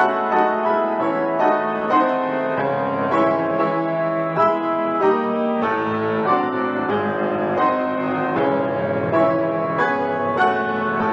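Solo piano playing a classical-style piece: a steady flow of notes and chords, a new note struck about every half second, with earlier notes ringing on underneath.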